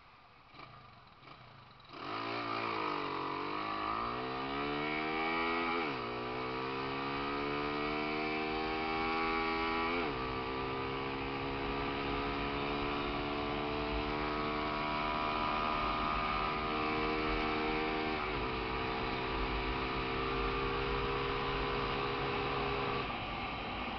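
Honda CG motorcycle's single-cylinder engine, bored out to 194cc, pulling away and accelerating hard through the gears. After a quiet start the engine note jumps up about two seconds in, climbs, and drops sharply at each of three upshifts, then holds steady before easing off near the end.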